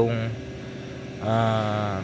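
A man's voice holding a long, flat "uhh" hesitation sound about a second in, over a steady low background hum.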